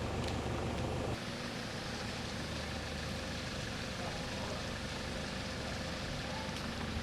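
A motor vehicle's engine running steadily with a low rumble. The rumble drops abruptly about a second in, then the engine runs on more quietly.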